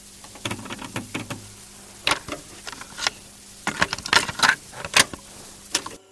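Irregular clicking and rattling, with clusters of sharp clicks about two seconds in and again between about four and five seconds, over a steady low hum; it cuts off suddenly near the end.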